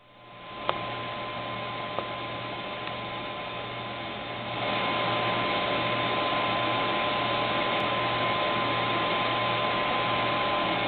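Steady hiss with a faint hum, like a fan or appliance running, stepping up in level about four and a half seconds in. Two faint clicks come in the first two seconds.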